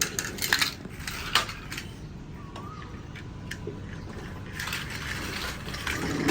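Small plastic toy cars clacking and knocking against each other and a plastic playset: a run of sharp, separate clicks, most of them in the first two seconds.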